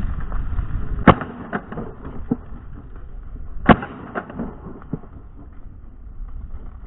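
Two sharp cracks about two and a half seconds apart, with a few fainter knocks between and after them, over light wind rumble.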